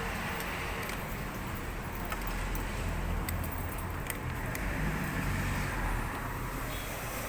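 A vehicle engine running steadily as a low rumble, with a few light metallic clicks.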